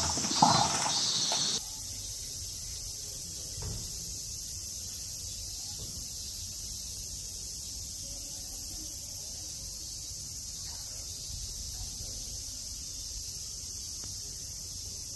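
Steady high-pitched drone of summer insects. Two brief loud sounds come right at the start, and the drone becomes quieter about a second and a half in.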